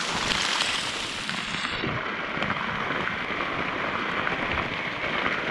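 Steady rush of a small waterfall, with falling water splashing onto a polyester rain-jacket sleeve held out in the stream.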